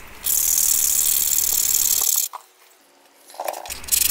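A knife whittling a white PVC-board fish-lure blank, heard as a fast, steady, high-pitched hissing scrape of shavings being cut. The scraping stops about two seconds in and is followed by quieter handling sounds near the end.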